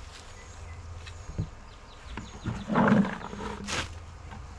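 Rustling leaf mulch, then a bucket of squash and cabbage trimmings tipped out onto the worm bed: a brief rustling, slumping dump about three seconds in, followed by a short knock or scrape.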